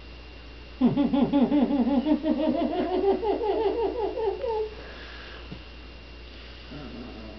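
A person laughing heartily in a long, rapid run of 'ha-ha' pulses, starting about a second in and lasting about four seconds.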